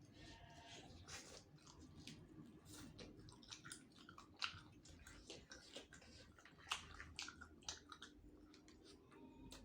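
Quiet close-up chewing of soft-boned chicken heads: irregular wet smacks and small clicks of the mouth and teeth, several a second.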